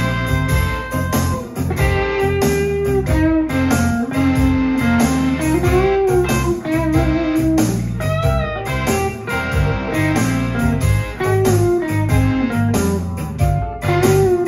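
Explorer-style solid-body electric guitar played through an amplifier: a single-note blues lead line with held, bent and wavering notes, over a steady low accompaniment with a beat.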